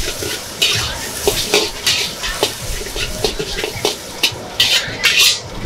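Metal wok spatula scraping and clanking against a steel wok as eggs are stir-fried, in repeated strokes a few times a second over the sizzle of frying.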